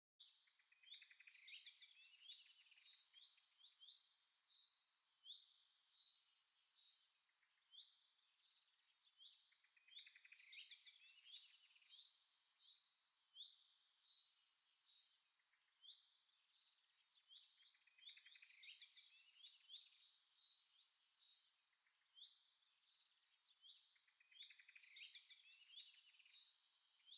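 Faint birdsong: several birds chirping and trilling in quick high phrases. The same passage repeats about every nine seconds, as a looped birdsong recording does.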